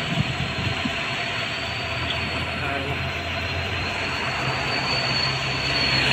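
Steady outdoor rushing noise with a low hum and a thin, constant high whine, swelling a little near the end.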